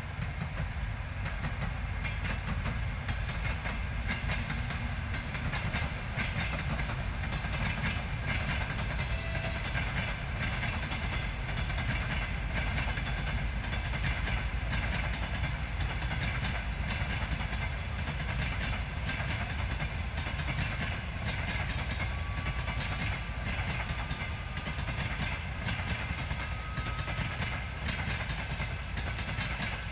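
Passenger train hauled by a TEP70 diesel locomotive running past, its carriages' wheels clicking over the rail joints over a steady low rumble.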